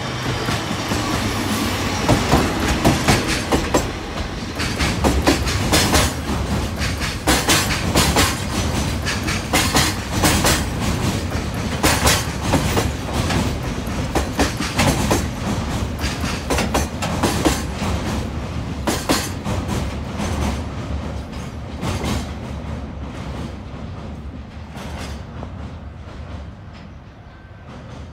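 Freight train of container and tank wagons passing close by, its wheels clacking over the rail joints in quick, irregular clicks over a low rumble, with a diesel locomotive's engine under it at the start. The sound fades over the last few seconds as the train moves away.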